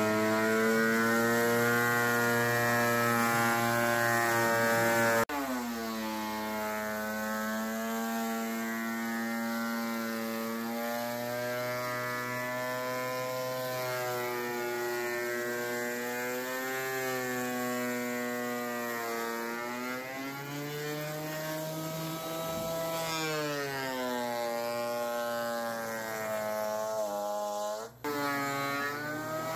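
Benchtop thickness planer running as it planes rough-sawn Douglas fir boards; its motor's whine sags in pitch and recovers several times, with a sudden drop in level about five seconds in.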